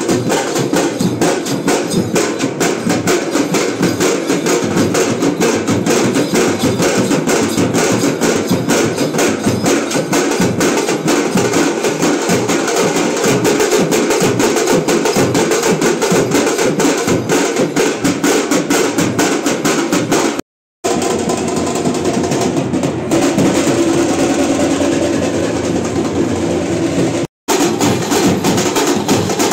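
Fast, dense drumming from a street band of strap-hung drums beaten with sticks, a continuous rapid beat. The sound cuts out abruptly for a moment twice in the second half.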